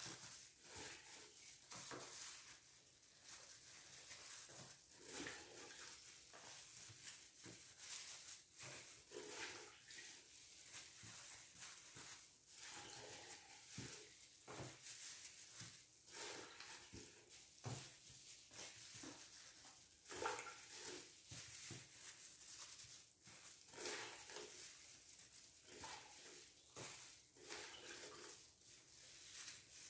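Faint handling sounds of packing white cheese into plastic tubs: plastic gloves rustling and cheese blocks set into clear plastic containers, with irregular soft taps and clicks throughout.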